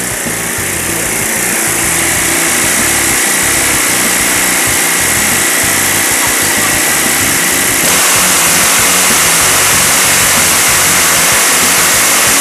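Riding lawn mower engine running steadily, heard close up, getting a little louder about eight seconds in.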